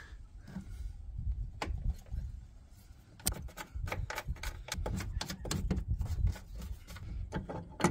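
Rapid, irregular light clicks and taps from about three seconds in, as a hand works the brass service valve fittings on a heat pump's outdoor unit, over a low rumble.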